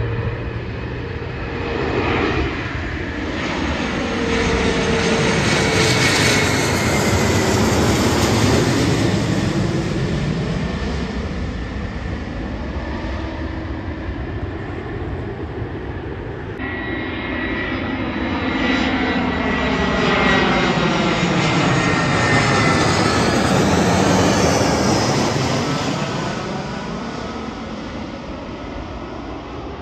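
Two jet airliners on final approach pass low overhead one after the other. First comes a Fokker 100 with its rear-mounted Rolls-Royce Tay turbofans, then, after a sudden cut about halfway through, an Airbus A320. Each one's engine noise swells as it nears and falls in pitch as it passes over.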